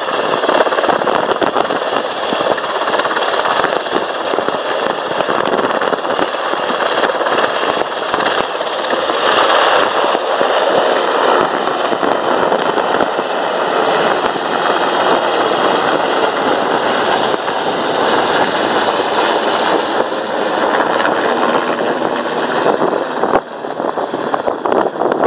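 HM Coastguard search-and-rescue helicopter lifting off close by and climbing away: loud, steady turbine noise and rapid rotor chop. Its high whine thins out near the end as it draws away.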